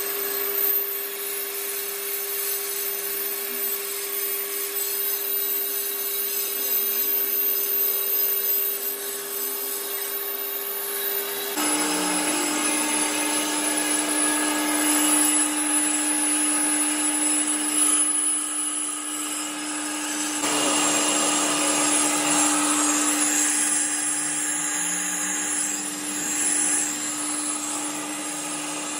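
Brake lathe turning a brake drum, its motor humming at a steady pitch while the cutting tool scrapes metal from the drum's braking surface. About a third of the way through, the hum jumps suddenly to a lower steady pitch, with the scraping going on.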